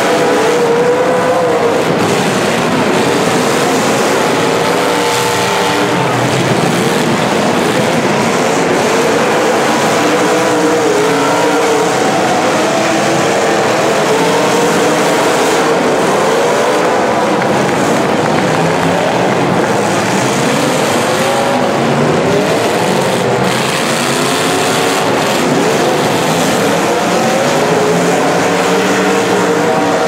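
Several demolition-derby cars' engines revving hard at once, pitches rising and falling and overlapping, as the cars spin their wheels and ram one another. A couple of brief knocks sound past the middle.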